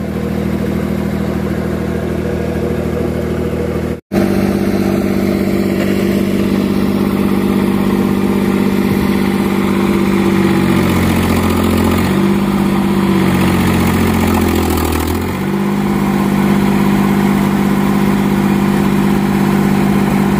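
Crawler dumper's engine running loud and unmuffled, its exhaust muffler having fallen off. Around the middle, its note drops and picks up again a few times as it drives; the sound breaks off for an instant about four seconds in.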